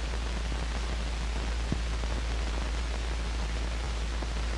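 Steady hiss and low hum of an old film soundtrack, with one faint click about two seconds in.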